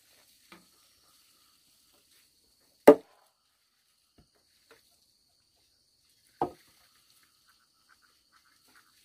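Two hard knocks of wood being struck, about three and a half seconds apart, the first the louder, with a faint click before them.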